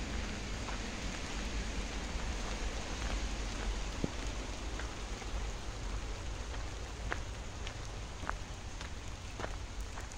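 Steady rain hissing on foliage and water, with scattered sharp ticks of raindrops striking the phone close to the microphone. A low rumble runs underneath.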